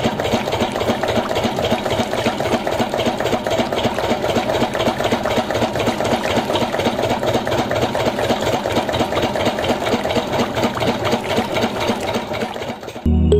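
Small motor in a toy engine model running steadily, driving a string belt, pulleys and a crank linkage that work two miniature hand-pump handles; a fast, even mechanical whirring rattle that stops near the end.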